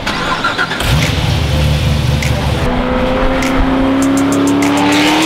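Car engine and exhaust accelerating: a deep rumble under load, its pitch rising steadily through the second half. Music plays underneath.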